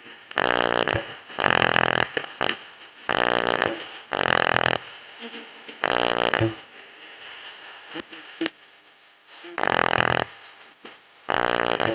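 Loudspeaker with a torn surround playing short bass notes, each one coming out as a loud, distorted buzzing rattle as the loose cone knocks. About seven such notes come in irregular pairs, with a pause of a few seconds in the middle.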